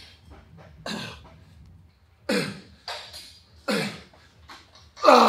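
A person letting out short, forceful breaths, one about every second and a half, growing louder toward the end; the last one has voice in it, like a grunt.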